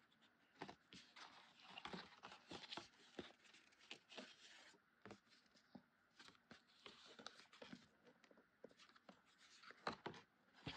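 Faint, irregular rustling and light taps of kraft cardstock pieces being handled and pressed together by hand.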